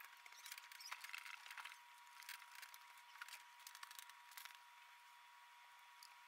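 Faint scratching and light ticks of a small screwdriver turning the screen screws into a laptop LCD panel's mounting frame, mostly in the first four and a half seconds, over a faint steady high tone.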